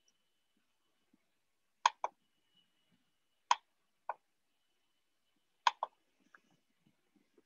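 Three pairs of sharp clicks, about two seconds apart, over quiet room tone with a faint, thin, high steady tone in the background.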